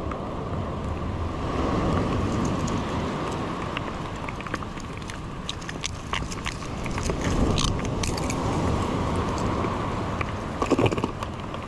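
Wind buffeting the microphone over the sea, with many scattered short clicks and ticks through the middle and a brief louder sound near the end.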